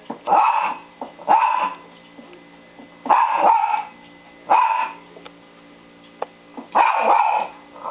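Dog barking repeatedly: five loud barks, spaced about one to two seconds apart.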